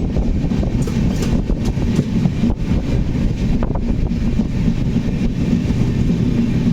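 Train running on the rails with a steady low rumble and a few faint clicks.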